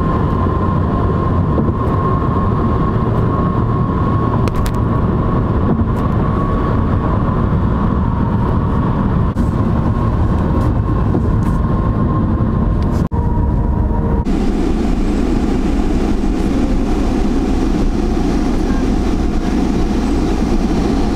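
Car travelling at highway speed, heard from inside the car: a steady rush of road and wind noise. The sound changes abruptly about fourteen seconds in.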